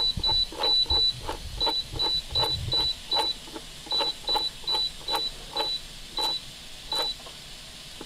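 Pampered Chef stand mixer's control dial being turned to set the mix timer: a short high beep with a click at each step, about two to three a second, coming slower after the first few seconds and stopping about a second before the end.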